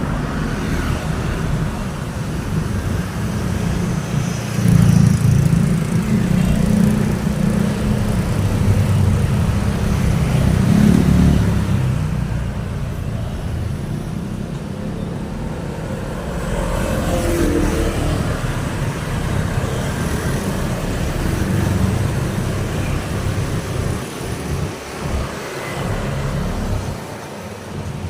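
Road traffic: cars and motorbikes passing continuously, a steady rumble of engines and tyres that swells as vehicles go by, loudest about 5 and 11 seconds in.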